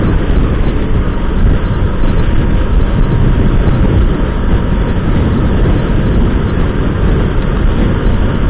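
Steady rush of wind over a helmet-mounted camera microphone on a Bajaj Pulsar RS200 motorcycle cruising at about 80 km/h, with its single-cylinder engine running underneath. The noise is loud and even throughout, heaviest in the low end.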